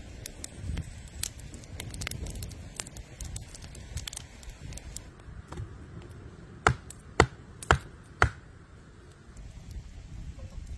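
Wooden post of a stick frame being knocked into the ground: four sharp knocks about half a second apart, a little past the middle, over a low rumble and scattered small clicks.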